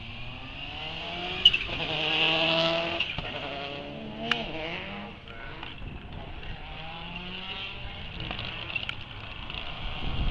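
Subaru Impreza rally car engines revving hard and passing on track, the engine note rising and falling. The engines are loudest about two to three seconds in. Two sharp bangs cut through, one about one and a half seconds in and another about four seconds in.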